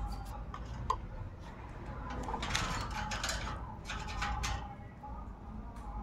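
Rose-ringed parakeet biting and chewing a piece of guava held in its foot: a few sharp beak clicks, then two longer spells of crunching nibbles around the middle.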